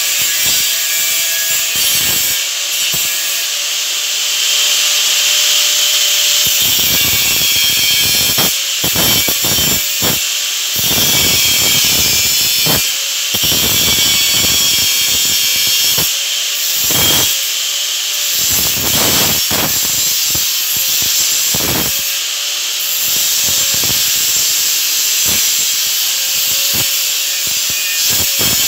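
Handheld electric angle grinder with an abrasive disc grinding a steel tube: a continuous high hiss with the motor's whine underneath. Louder, rougher rasps come again and again as the disc bites into the metal.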